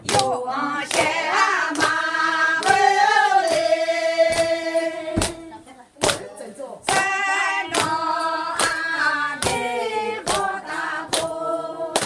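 A group of voices singing a song in long held notes, with a sharp beat keeping time a little under once a second. The singing drops away briefly about six seconds in, then comes back.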